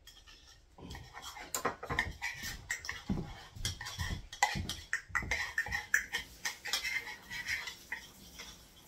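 A spoon scraping and knocking inside a small container as its contents are shaken and tapped out into a stainless steel mixing bowl: an irregular run of clicks, scrapes and knocks starting about a second in.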